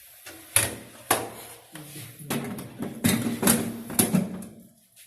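Several sharp clicks and knocks of hands handling parts at an opened fire alarm control panel; no siren sounds.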